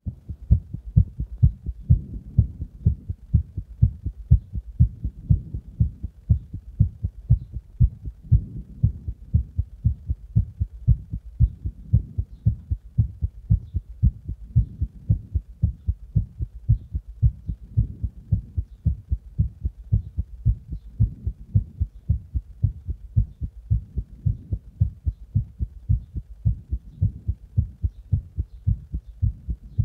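A human heartbeat recorded close up: a steady, regular train of low, dull beats. By the uploader's account it was recorded just after drinking a Monster energy drink and applying pressure.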